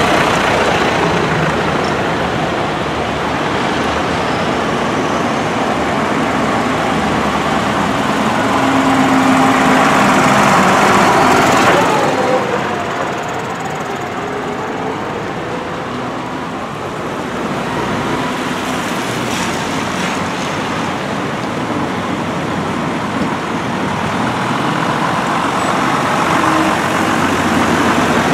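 Diesel engines of farm tractors, John Deere tractors among them, running as they drive past one after another, with tyres hissing on the wet road. The sound is loudest around ten seconds in, drops suddenly about twelve seconds in, and builds again near the end.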